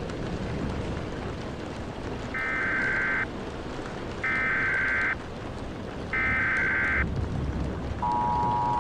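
Emergency Alert System header: three identical screeching digital data bursts about a second apart, followed about 8 seconds in by the start of the steady two-tone EAS attention signal. Steady rain noise lies underneath.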